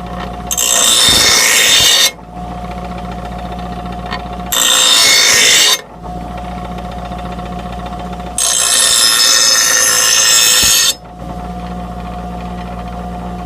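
A steel mower blade is ground against a spinning grinding wheel in three passes, each a loud grinding hiss lasting one to two and a half seconds. Between passes the grinder's motor runs on with a steady hum.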